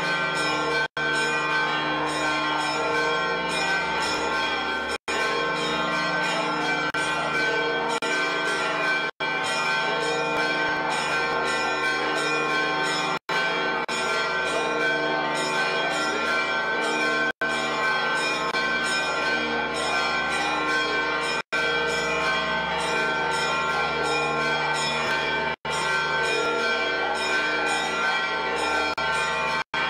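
Church bells ringing continuously, many bells sounding together in a dense, even peal. The sound cuts out for a split second about every four seconds.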